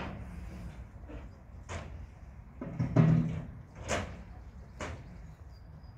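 Scattered knocks and bangs of Waltzer ride parts being handled and fitted during its build-up, about five in all, the loudest a heavy thump about three seconds in.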